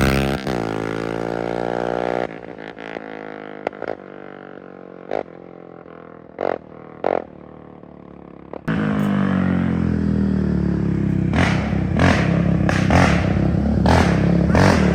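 Yamaha Raptor 700 single-cylinder ATV engine with a loud aftermarket exhaust: the revs fall away at first, then it runs quietly with several short sharp pops. About nine seconds in it is suddenly loud again, running hard with crackles in the exhaust.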